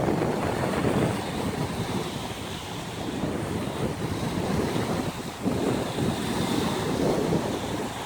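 Small sea waves washing on the shore, a continuous rushing that swells and eases, with wind buffeting the microphone.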